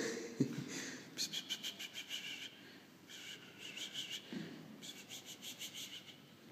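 Cat's claws scrabbling on a marble floor: several quick runs of light scratching strokes.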